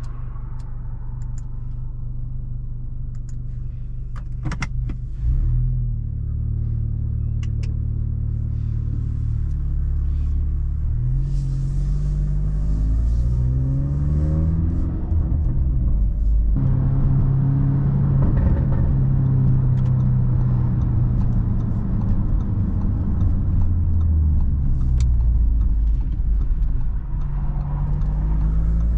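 Catless, tuned Audi S3's turbocharged 2.0-litre four-cylinder heard from inside the cabin, accelerating with its note rising through the gears and dropping suddenly at a shift about two-thirds of the way in. A few sharp exhaust pops come in the first several seconds.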